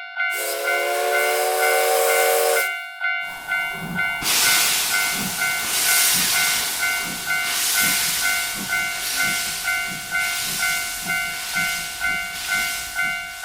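Steam locomotive whistle blowing for about two seconds. After a short break comes the locomotive's hissing steam and chuffing as it pulls away, the chuffs coming faster and faster. A railroad crossing warning bell dings steadily, about twice a second, throughout.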